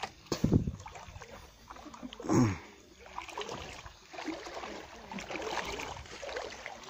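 Splashing through shallow, flowing water as someone wades, with a couple of knocks near the start and a short sound falling in pitch about two and a half seconds in.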